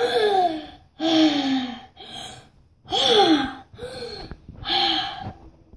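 A child's voice making a run of about six short, breathy cries, each under a second and falling in pitch.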